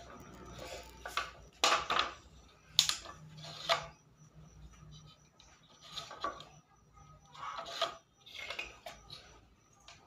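Unpainted wooden bird cage being handled and set down on a concrete floor: a string of light wooden knocks and rattles, the sharpest about three seconds in.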